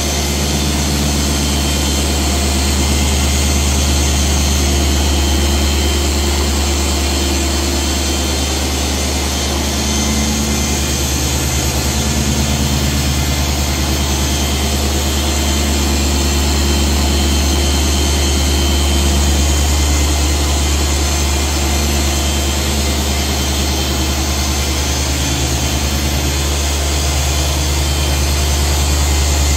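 Dual-action polisher with a foam pad running steadily while it is worked across car paint with polish: a constant low hum that swells a little now and then.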